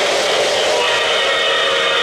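O-gauge model steam locomotive sounding its electronic steam whistle, a steady multi-tone chord that starts about two-thirds of a second in and holds, over the continuous rolling noise of the model train on the three-rail track.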